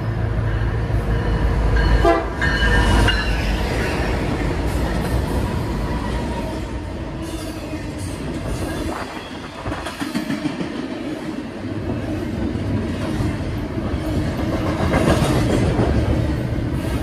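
Diesel freight locomotives pass with a heavy engine rumble and a short horn blast about two seconds in. Then a double-stack container train rolls by close, its wheels clattering steadily over the rail.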